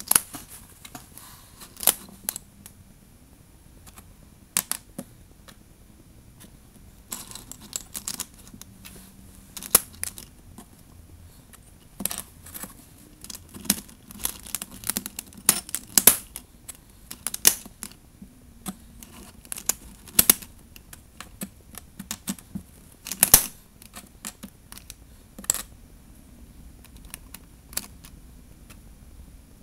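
Small plastic pieces of a disassembled DIY Rubik's cube clicking and rattling as they are handled and fitted back together during reassembly. The clicks come irregularly, singly and in short clusters.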